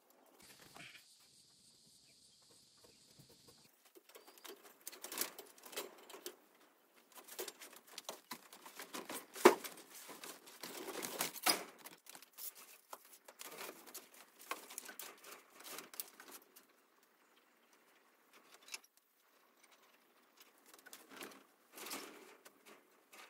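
Irregular rustling, rattling and knocking of hexagonal chicken-wire mesh being handled and fastened, with movements on a bamboo-slat floor. The sharpest knock comes about nine seconds in, and there is a lull of a few seconds past the middle.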